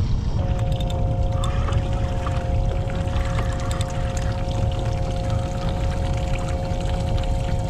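Wind and sea water rushing on an action camera's microphone on a kayak, a dense steady noise, with a steady two-note hum that comes in about half a second in and holds.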